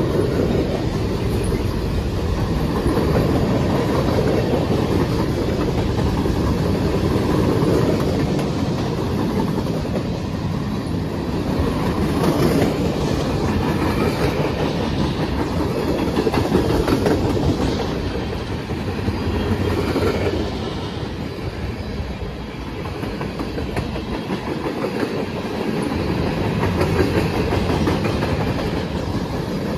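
Mixed freight cars of a CSX manifest train rolling past at close range: a steady rumble of steel wheels on the rails, with clicking as the wheels cross the rail joints.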